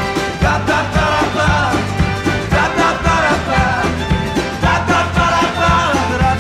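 Background music: a song with a steady drum beat and a moving melody line.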